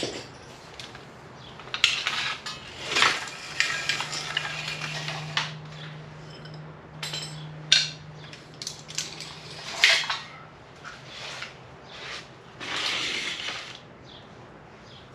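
Metal hand tools clinking and clanking, with scattered sharp knocks and a few short scrapes.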